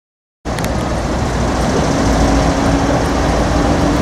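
Steady rumble of urban traffic noise that cuts in about half a second in, with a steady droning hum joining about two seconds in.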